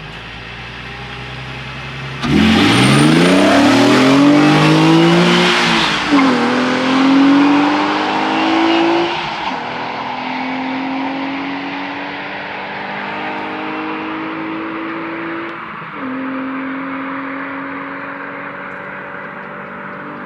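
Naturally aspirated car engine pulling hard from about two seconds in, its pitch climbing through each gear, with three upshifts where it drops and then climbs again.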